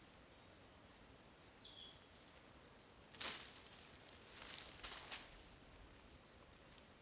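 Quiet outdoor background with a few brief rustles about three, four and a half, and five seconds in, the first the loudest, and one short bird chirp before them.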